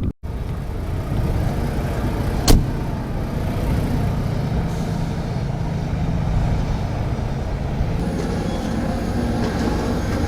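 Semi truck running, a steady low rumble of engine and road noise, with one sharp click about two and a half seconds in.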